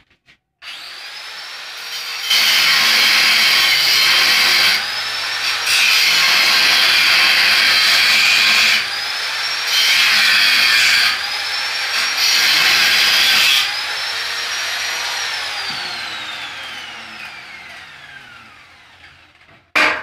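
Angle grinder spinning up and cutting into a metal stair railing in four loud bursts of a few seconds each, the motor's whine holding steady between cuts. After the last cut it is switched off and the whine falls away as the disc winds down.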